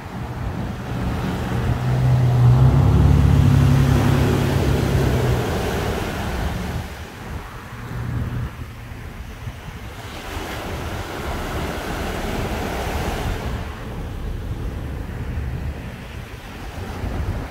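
Small ocean waves breaking and washing up a sandy beach, with wind on the microphone. About two seconds in, a low motor hum swells for a few seconds, the loudest sound here, then fades.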